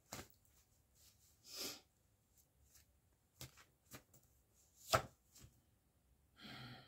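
A few scattered light clicks and taps, the loudest about five seconds in, with a short swish early on and a brief hum of a voice near the end.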